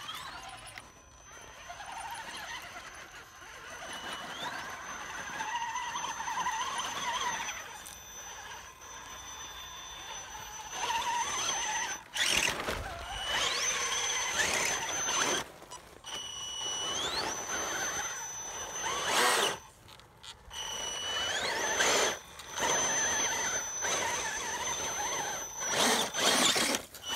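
Electric motor and gear drive of a radio-controlled rock crawler whining at a high pitch. The pitch rises in short glides each time the throttle is pulled. Loud bursts come from the tyres spinning and scrabbling in loose dirt.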